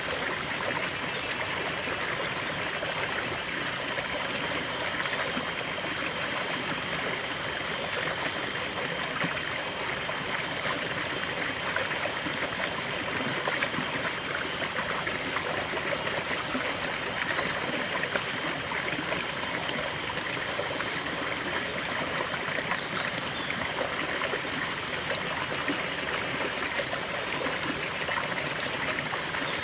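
River water flowing steadily over rocks in an even rushing and trickling.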